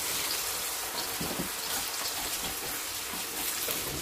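Sweet potato chunks just added to hot cooking oil, sizzling steadily in a frying pan, with a wooden spatula stirring them near the end.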